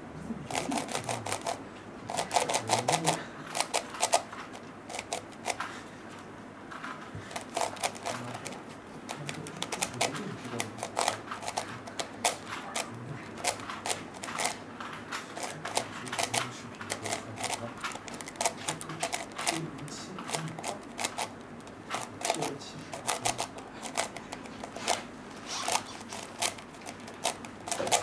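Plastic layers of a QJ pillowed 4x4x4 puzzle cube clicking and clacking as they are turned by hand, in quick flurries of turns with short pauses between.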